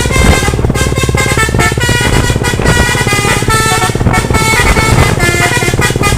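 Truck's telolet horn, a multi-tone musical air horn, playing a quick tune of short notes. A steady engine rumble runs underneath.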